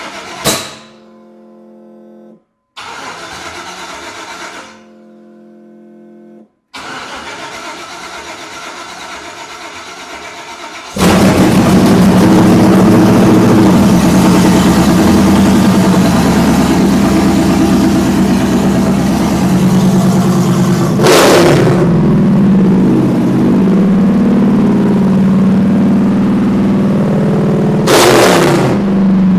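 A 5.3-litre LS V8 being started for the first time: three short bursts of cranking, then about eleven seconds in it fires and runs, really loud, with two quick revs later on.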